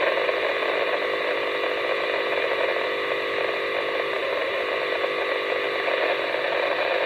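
Weather satellite signal played through a radio receiver's audio: a steady, unbroken hiss with faint steady tones in it.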